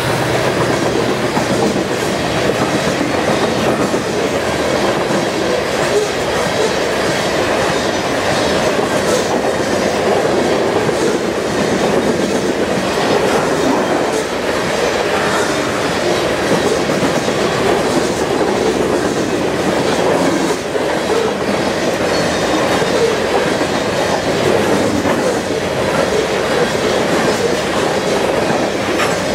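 Freight train covered hopper cars rolling past: the steady, loud noise of steel wheels on rail, with scattered clacks as the wheels cross rail joints.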